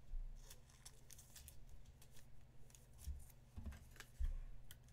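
Faint scattered clicks and rustles of trading cards and plastic card holders being handled, over a low steady electrical hum.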